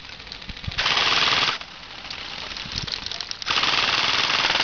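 Airsoft rifle firing two full-auto bursts, each about a second long: one about a second in and one near the end.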